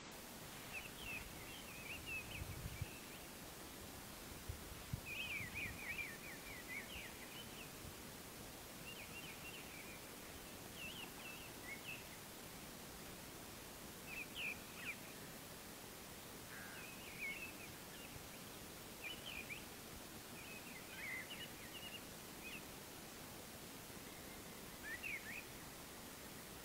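Woodland birds chirping in short phrases every second or two over a faint steady outdoor hiss, with a couple of soft low thuds in the first few seconds.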